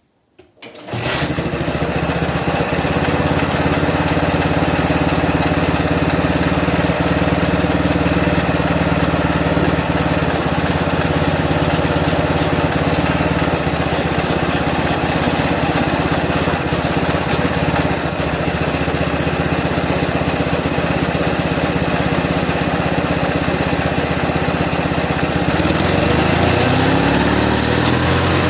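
Ural motorcycle's two-cylinder boxer engine starting about a second in and then running steadily. Its speed changes near the end as the jacked-up rear wheel is spun up in gear to balance the two cylinders.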